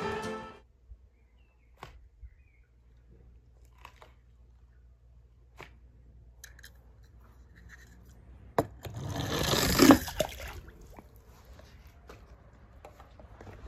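A few faint handling clicks, then about nine seconds in a short, loud splash of water lasting about two seconds as a small die-cast toy car drops into a swimming pool.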